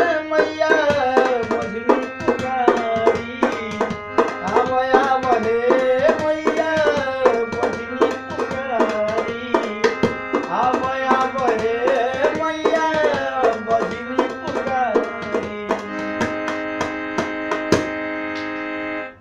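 Instrumental music: tabla playing a steady rhythm under a melody that bends up and down. For the last few seconds a chord is held, then the music cuts off suddenly.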